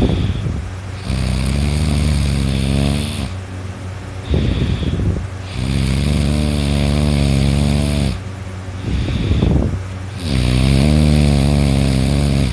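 A sleeping person snoring loudly: three long pitched snores of two to three seconds each, coming about every four to five seconds, with shorter rough breaths between them.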